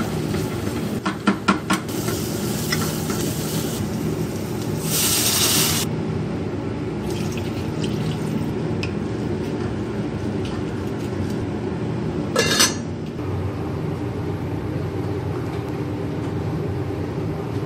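Onions sizzling in a pot while a spatula stirs and scrapes them, clattering against the pot in the first couple of seconds. About five seconds in, liquid is poured into the pot with a loud rush, and a second clatter of utensil on pot comes about twelve seconds in.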